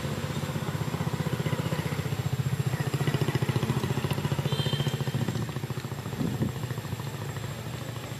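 A small engine running steadily at idle, a low, evenly pulsing hum. A brief high chirp comes about halfway through.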